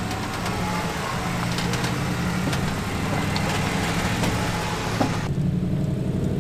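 Jeep engine running steadily at low revs, as when crawling a rocky trail. The hissy background above it drops away suddenly about five seconds in.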